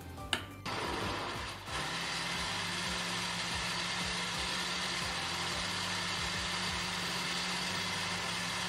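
Black+Decker countertop blender motor switching on with a click about half a second in, dipping briefly, then running steadily as it blends a thick fruit, yogurt and milk smoothie.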